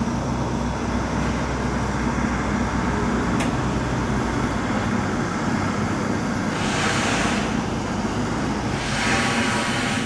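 Road traffic: a steady low rumble with an engine hum underneath, and two louder rushes of vehicles going past about seven and nine seconds in.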